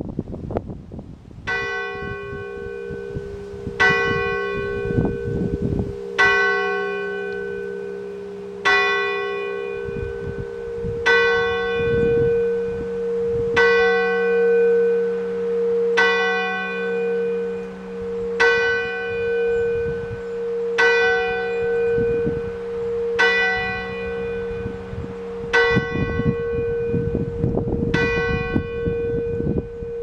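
A single church tower bell striking twelve for noon, one stroke about every two and a half seconds, each stroke ringing on in a long hum. Wind buffets the microphone at the start and again near the end.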